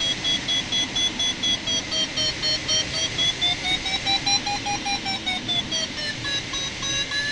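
Glider's audio variometer beeping rapidly, several pulses a second, its pitch rising a few seconds in and falling back near the end: the sailplane is climbing, with the higher pitch marking a stronger climb. A steady rush of air runs underneath.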